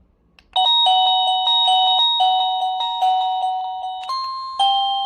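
Wireless doorbell chime playing an electronic ringtone melody of quick repeated beeping notes. It starts about half a second in, and the notes change pitch near the end as the tune moves on.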